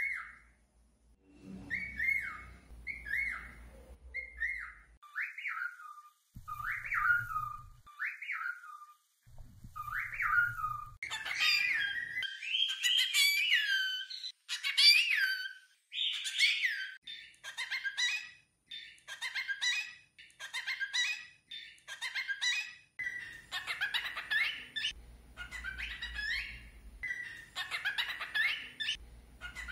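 Cockatiels whistling: a string of short, separate whistled notes that each rise and fall, then, from about eleven seconds in, a quicker run of warbling, chirpy whistles and chatter that imitates speech.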